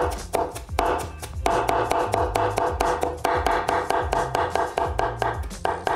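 A Chinese cleaver mincing on a bamboo cutting board: a rapid, steady run of chops. Background music plays underneath.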